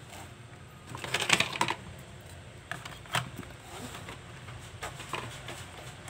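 Light clicks and rattles from handling the laptop's plastic bottom cover and small screws during reassembly, with a quick cluster about a second in and a few single clicks after.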